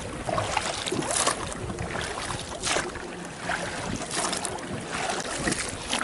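Oars of an inflatable rowboat dipping and pulling through calm sea water, a splash with each stroke, roughly one stroke every second and a half.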